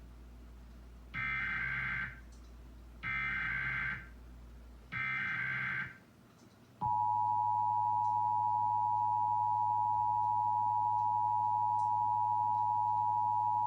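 Emergency Alert System test on cable TV: three short buzzy digital header bursts about two seconds apart, then the steady two-tone attention signal starting about seven seconds in. Together they open a required monthly test.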